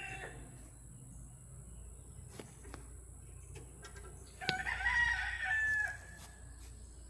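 A rooster crows once, a single call of about a second and a half starting some four and a half seconds in. Before it come a few faint, light clicks.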